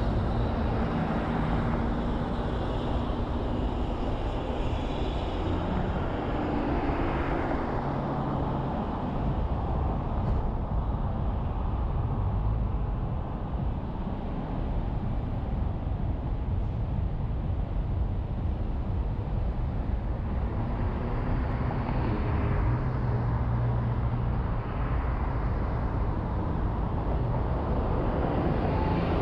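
City street traffic heard from outside a car as it drives: a steady mix of engine and road noise that swells a little now and then.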